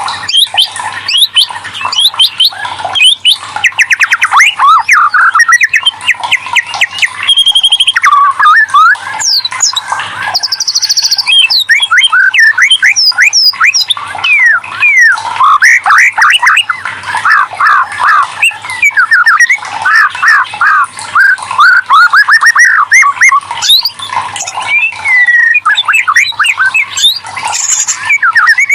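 White-rumped shama (murai batu) singing a loud, continuous, fast-changing song of rapid whistles, sweeping notes, trills and harsher squawk-like phrases.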